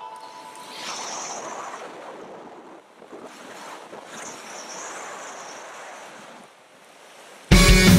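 Rushing, wind-like noise that swells and falls, as the last notes of the previous music fade out. Loud rock music cuts in suddenly near the end.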